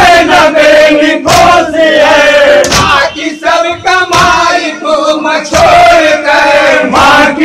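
Group of men loudly chanting a Shia mourning lament (noha) together over a microphone, with a chest-beating slap (matam) keeping time about every second and a half.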